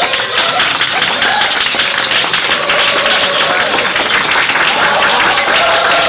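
Caged lovebird giving a long, rapid rattling chatter that runs on without a break, with shorter rising and falling calls mixed in.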